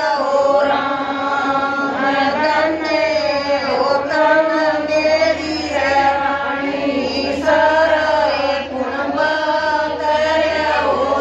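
Women's voices singing a Haryanvi devotional bhajan in a chant-like melody.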